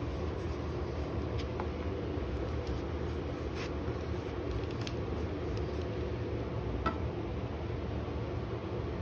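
A baren rubbed over the back of a sheet of paper on an inked linoleum block, burnishing the print, with a few faint light ticks, over a steady low background hum.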